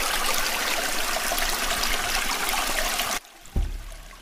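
Sound-effect recording of rushing water, a steady hiss that cuts off abruptly about three seconds in, followed by a short low thump.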